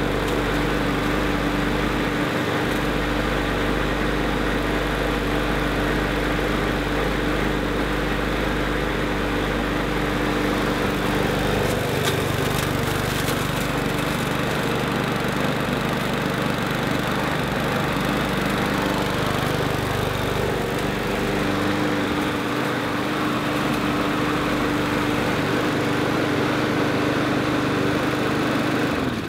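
Rotary lawnmower's small pull-start petrol engine running steadily at one even speed.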